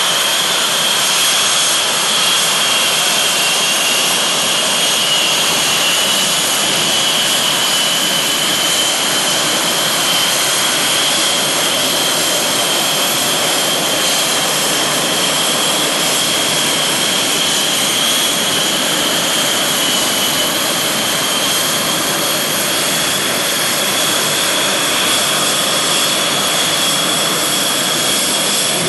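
Blue Angels F/A-18 Hornet jet taxiing on the runway, its twin turbofan engines giving a loud, steady, high-pitched whine over a constant rush of exhaust noise. The whine dips slightly in pitch partway through and climbs again near the end.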